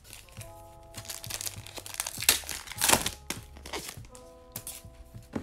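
Foil wrapper of a hockey card pack being torn open and crinkled, in a run of crackles loudest about two to three seconds in, over background music.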